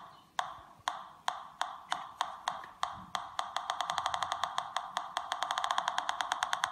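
Homemade Pi-Polonez pulse-induction metal detector clicking through its speaker. The clicks speed up from about two a second to a rapid ticking as a piece of copper is brought toward the search coil: the detector is sensing the metal.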